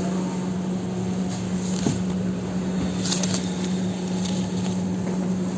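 Electric paint mixing machine running, a steady hum with a noisy shaking rattle as it mixes a can of paint.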